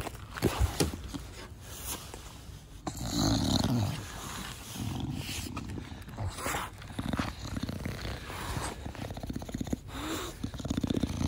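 English bulldog breathing close to the microphone with rough snorts and snuffles in repeated bursts, the loudest about three seconds in and again near the end: the noisy 'fugo fugo' breathing of a short-nosed breed. A few sharp taps about half a second in.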